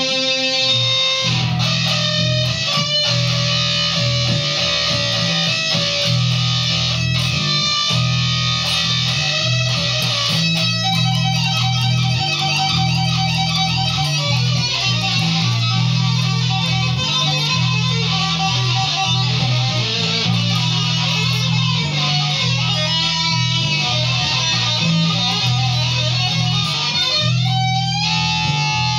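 Electric guitar playing a lead line over a steady low bass accompaniment, with a fast passage of quick notes about midway and a rising bend near the end.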